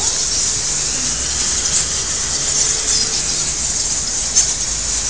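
A large colony of bats squeaking in a cave: a dense, steady high-pitched chorus, with a few sharper squeaks standing out now and then.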